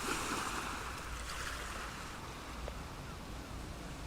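Waterside ambience: a steady hiss of water lapping and wind, slightly stronger at the start and easing off.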